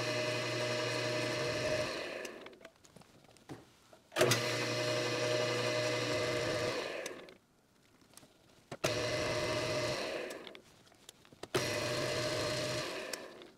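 Metal lathe's electric motor driving the spindle through a 3D-printed TPU flat belt, switched on and off in short runs. The first run coasts down about two seconds in, and then it is started three more times, each start with a click of the switch, a steady hum for a few seconds and a wind-down.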